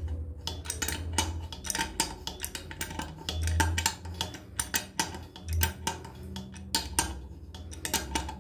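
Wrench clicking and scraping on a faucet's steel mounting nut and threaded stud as it is tightened under a ceramic basin: many quick, irregular metallic clicks and clinks.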